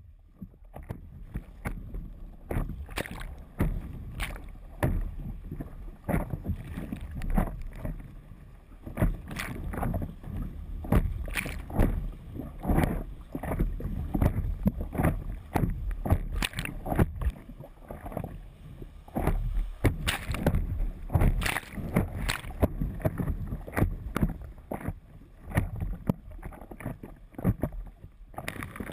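River whitewater rushing and splashing against a stand-up paddleboard, heard up close from the board at water level: a steady low rumble with frequent irregular splashes.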